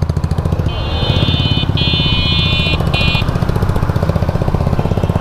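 Royal Enfield Classic 350's single-cylinder engine idling with a steady, even exhaust thump; the silencer has a hole near the rear mudguard. About a second in, a high horn-like tone sounds three times, the last one short.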